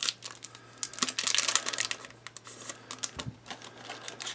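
Trading cards handled by hand: a run of quick clicks and snaps as the cards are flicked and slid against one another, densest about a second in.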